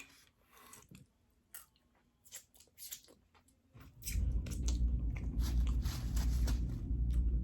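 Close-miked chewing and biting of food, with scattered crunchy mouth clicks at first. About four seconds in, a loud low rumble sets in under denser chewing noises.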